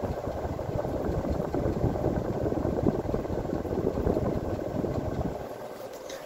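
Air from a vintage Ritz 52-inch ceiling fan running in reverse, buffeting the microphone as a gusty wind rumble that eases off about five and a half seconds in.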